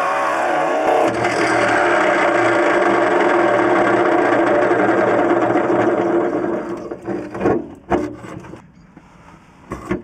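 Cordless drill running a holesaw through the Ford Transit's floor panel, a steady whine that winds down and stops about six and a half seconds in as the saw breaks through. A few sharp knocks follow.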